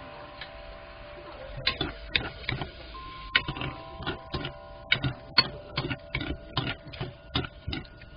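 Wooden spatula scraping and knocking against a nonstick wok while sweet potato stems are stir-fried, in a series of quick strokes starting about a second and a half in, one or two a second.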